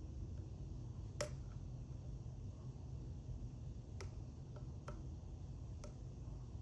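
Illinois Duo wafer padlock being picked: a handful of sharp, scattered small clicks as the pick works the wafers, the first one about a second in the loudest, over a steady low background hum.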